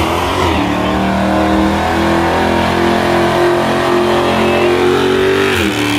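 Car engine revved up and held at steady high revs during a burnout, over the hiss of the rear tires spinning on the pavement. The revs dip about a second before the end.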